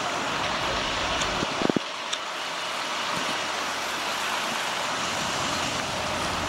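Steady rushing of a flooded creek, with a couple of short knocks about a second and a half in and a low engine hum joining in the second half.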